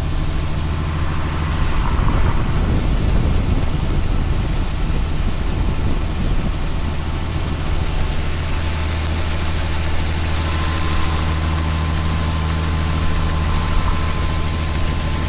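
Heavy farm machine's diesel engine running steadily with a deep, even drone and a constant hiss over it; a faint steady whine comes in about two-thirds of the way through.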